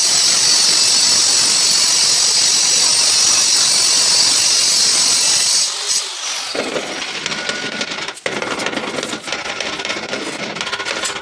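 Steady machine noise like a power tool running: a loud high hiss and whine that stops abruptly about six seconds in, then a lower, rougher steady noise.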